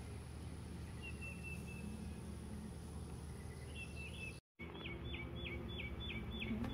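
Steady low hum of a mass of honey bees on an open hive frame, with songbirds chirping in the background. After a brief dropout about halfway through, a bird repeats quick falling chirps, about four a second.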